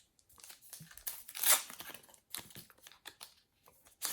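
A trading-card packet wrapper being torn open and crinkled, with one loud rip about one and a half seconds in, followed by lighter rustling and small clicks of handling.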